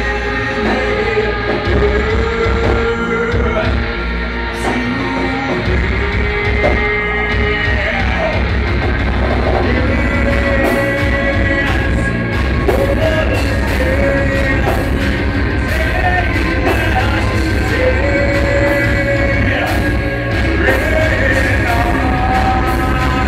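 Live rock band playing loudly: electric guitars, bass and drums, with a vocalist singing held notes into a microphone. Cymbal hits grow denser about halfway through.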